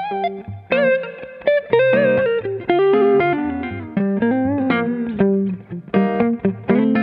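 Two electric guitars played together through AmS valve amplifiers: picked single-note lines with string bends and vibrato over chords.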